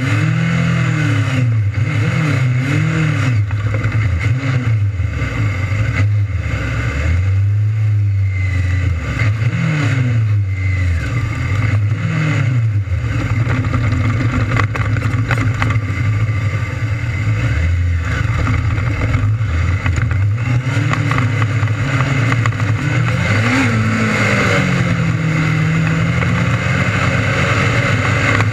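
600cc restricted micro sprint race cars racing, their motorcycle engines rising and falling in pitch over and over as they come on and off the throttle.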